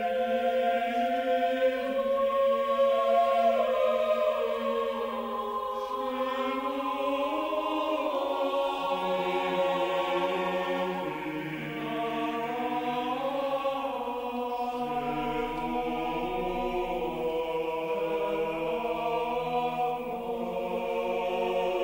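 Orchestral film-score music with a choir singing slow, sustained chords that shift to new pitches every few seconds.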